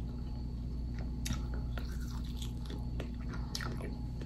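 Close-miked biting and chewing on a barbecued pork rib, with short, irregular mouth clicks and smacks.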